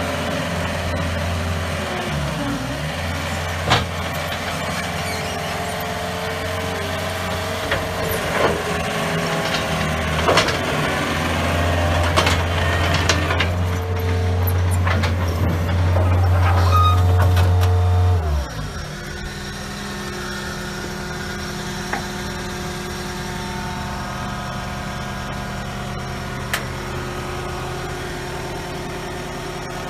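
John Deere 319E tracked skid steer's diesel engine running at high throttle, with several sharp knocks from the machine. About 18 seconds in the engine throttles down, falling in pitch to a steady idle.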